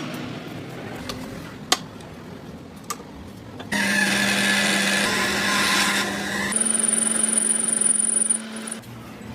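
A power tool starts abruptly about a third of the way in and runs steadily for about five seconds, changing partway through when a high whine joins it. Before it starts there are a couple of sharp clicks over low shop noise.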